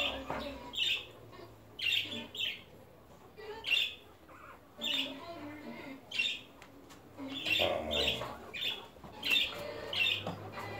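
Very young puppies squeaking: short, high-pitched cries repeated about once a second.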